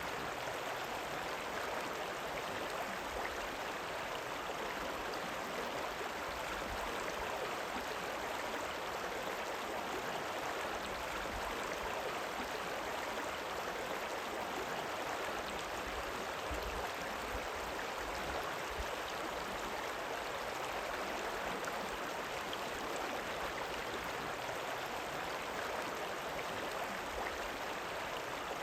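River water rippling and running steadily, an even rushing with no breaks or distinct splashes.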